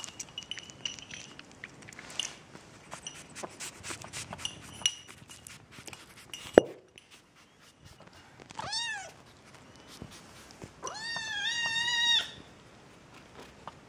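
Six-week-old kitten eating wet food from a china saucer, a run of small wet clicks and smacks, then one sharp click. The kitten then meows twice: a short meow, then a longer, drawn-out one.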